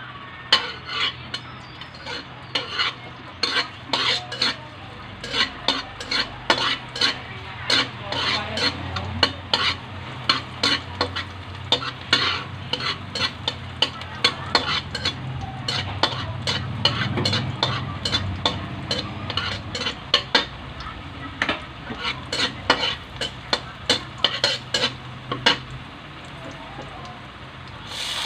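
Metal spatula scraping and clacking against an aluminium wok, two or three sharp clacks a second, while chopped garlic fries in oil with a light sizzle.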